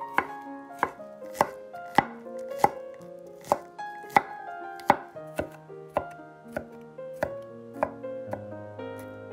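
Santoku knife chopping a garlic clove on a bamboo cutting board: even, sharp knocks of the blade on the board, about three every two seconds, with background music underneath.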